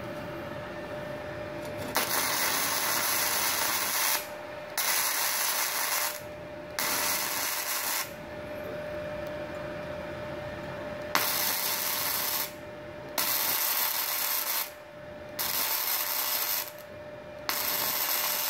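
Gasless flux-core MIG welding arc from a MultiPro MIG-MMA/TIG 160 inverter welder set near 64 amps, sizzling in seven short bursts of one to two seconds each, with a longer pause midway. The arc holds on a 1300-watt household supply.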